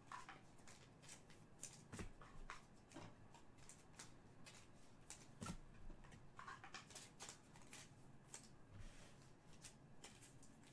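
Faint, scattered clicks and light rustles of trading cards being handled and sorted.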